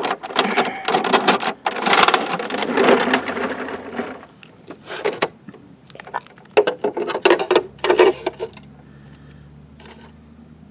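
Plastic toy rear-loader garbage trucks (a Bruder Mack Granite and a Battat Driven) being handled and loaded with paper trash: a rapid clatter of plastic parts for the first few seconds, then scattered clicks and taps. A faint steady hum sets in near the end.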